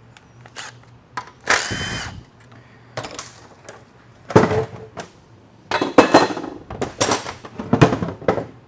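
A cordless power driver runs briefly, about half a second, backing out a bolt on an aluminium transmission case. It is followed by a series of sharp metal clanks and clinks as parts and tools are handled on the steel bench.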